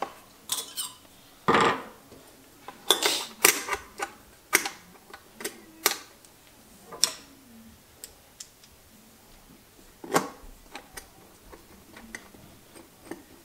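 Irregular metal clicks and knocks as the electrical cover plate is fitted back over the wiring on the base of a garbage disposal and its screw is driven in with a screwdriver. The loudest knock comes about a second and a half in.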